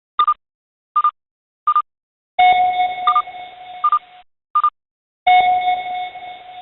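Electronic alert sounds: six short high beeps, about one every 0.7 seconds, with two longer chime tones about two seconds and five seconds in, each struck and fading over nearly two seconds.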